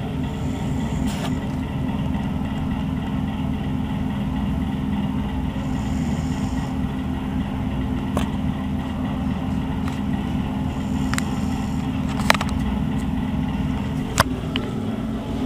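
Steady low machine hum, with a few short sharp clicks, the loudest about twelve and fourteen seconds in.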